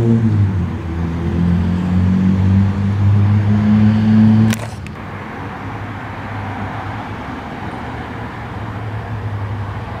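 A loud, low droning hum that holds a steady pitch with a couple of small shifts, heard from the sky. It cuts off abruptly with a click about four and a half seconds in, leaving a quieter steady rumble.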